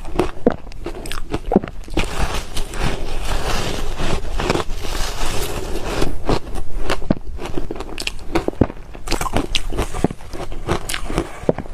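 Frozen matcha ice bites being bitten and chewed: repeated crunching and cracking of ice between the teeth, with a dense run of chewing crunches a few seconds in and separate sharp cracks after.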